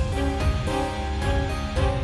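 Background music: a melody of plucked, harpsichord-like notes over a steady bass.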